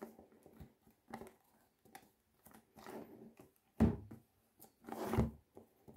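Hands handling a perfume box wrapped in cellophane: faint crinkling and rubbing of the plastic film, with a louder knock of the box on the table about four seconds in and another handling noise about a second later.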